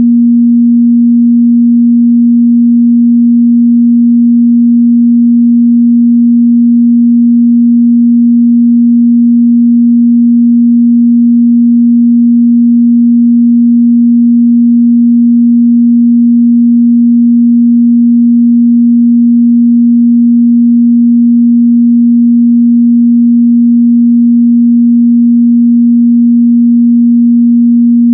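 A steady, loud 237 Hz sine test tone: a single unbroken pure tone in the mid-bass, made to check how a speaker or headphone reproduces that frequency.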